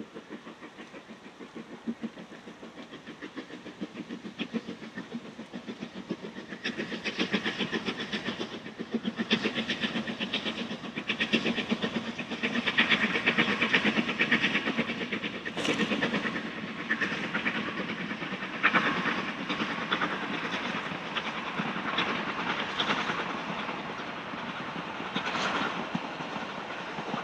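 Narrow-gauge steam tank locomotive working hard as it hauls a passenger train past, its exhaust beating in a fast, even rhythm. The beats grow louder from about six seconds in, are loudest around the middle, and ease slightly towards the end.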